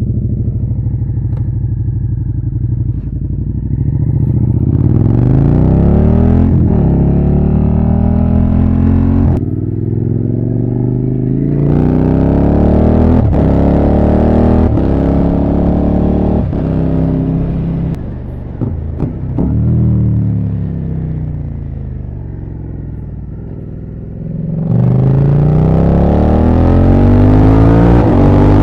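Suzuki SV650's V-twin engine through an SC Project oval exhaust with the dB killer removed, running steadily at first and then pulling away about four seconds in. It accelerates up through the gears, the pitch climbing and dropping sharply at each quick shift. Around two-thirds of the way through it eases off with a falling pitch and gets quieter, then accelerates hard again near the end.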